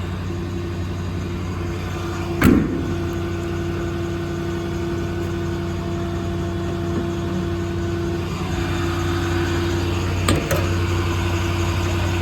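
Ford 6.7 Power Stroke diesel engine idling steadily. A sharp knock comes about two and a half seconds in and another near the end.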